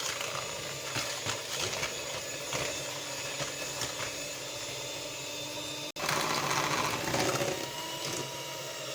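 Electric hand mixer running steadily, beating eggs and sugar in a bowl until they turn pale, with a momentary break about six seconds in.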